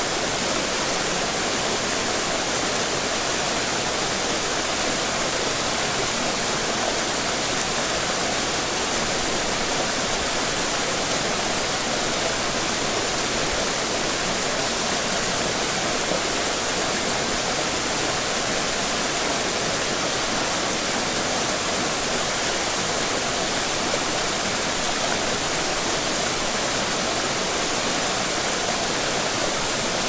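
Waterfall: water pouring and splashing in a steady, dense rush.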